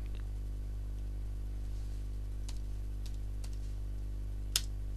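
A few faint, sharp clicks from a computer mouse and keyboard as values are entered, with one louder click near the end, over a steady low hum.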